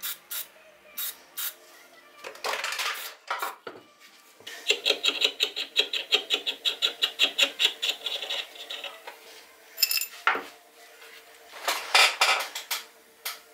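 Steel workshop parts (a pulley, bolt, nut and flat steel bar) being handled and fitted together on a workbench: scattered metallic clicks and clanks, a run of quick light ticks, about five a second, for some four seconds in the middle, a short ringing ping about ten seconds in, and a few clattering knocks near the end.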